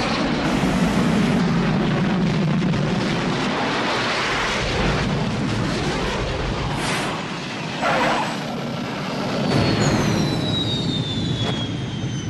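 Film sound effects of a Bede BD-5J microjet in flight: a steady jet roar with a few brief whooshes, and from about ten seconds in a high whine that falls steadily in pitch as the jet passes.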